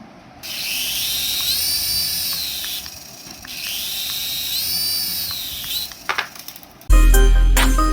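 Electric toy whirring twice, each time for about two and a half seconds, with a high whine that rises, holds and falls away. Background music comes back in near the end.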